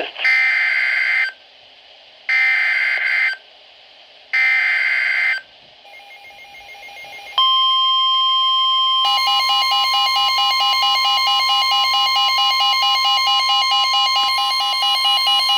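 Emergency Alert System data header: three loud screeching digital bursts, each about a second long with a second's pause between them. About seven seconds in, a steady alert tone begins. About two seconds later a pulsing, warbling second tone joins it, and both hold on together.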